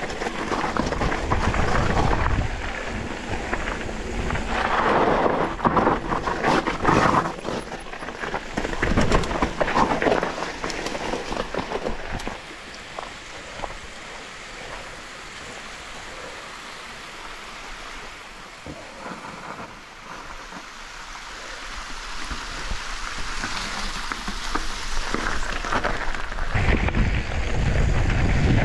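Mountain bike riding a rough trail: tyres rolling over uneven ground with many knocks and rattles, and wind buffeting the action camera's microphone. The sound eases off for a stretch in the middle, then a heavy low wind rumble builds up near the end.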